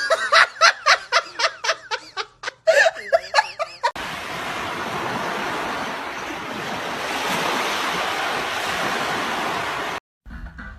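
A voice in quick rhythmic bursts, about four a second, for the first four seconds. Then a steady rushing noise like surf that cuts off near the end.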